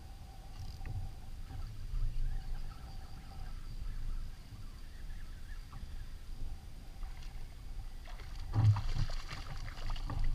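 Low rumble of water around a kayak on open water, with a hooked trout splashing at the surface about eight and a half seconds in as it is reeled up to the kayak.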